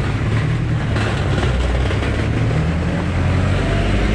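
Yamaha R3's 321 cc parallel-twin engine idling steadily through an open aftermarket muffler.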